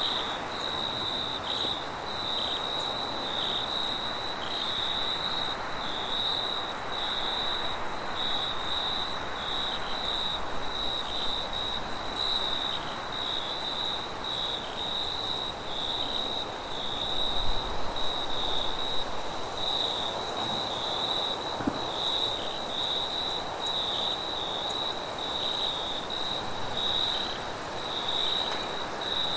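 Crickets chirping in a continuous, evenly pulsing chorus, with a higher steady insect trill above it, over a constant wind hiss. The wind swells briefly with a low rumble a little past halfway.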